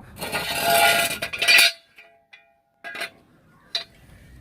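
The car being let down off its jack: a loud scraping rush for about a second and a half, then a couple of light metallic clinks.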